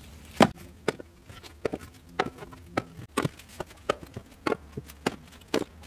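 Split firewood logs tossed one after another onto a pile, landing with sharp wooden knocks about twice a second, the first the loudest.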